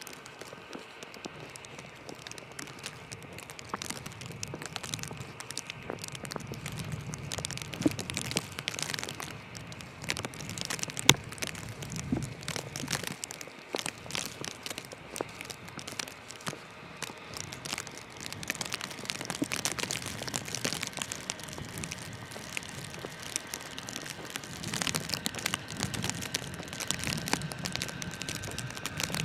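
Footsteps crunching through snow, with irregular crackles and clicks and one sharper click about eleven seconds in, over a faint steady street hum.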